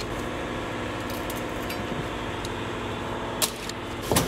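Light metallic clicks and taps as wheel weights are pried off a steel wheel rim with a hand tool, over a steady hum, with a couple of sharper knocks near the end.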